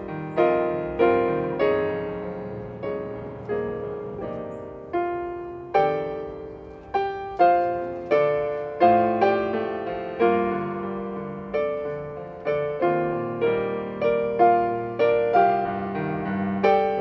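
Casio digital piano playing a slow instrumental prelude: chords and melody notes, each struck and then fading away.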